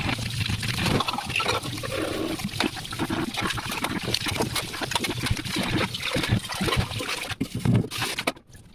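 Dishes being washed under running water: a steady flow splashing, with frequent small clinks and knocks of the dishware. The sound drops away suddenly near the end.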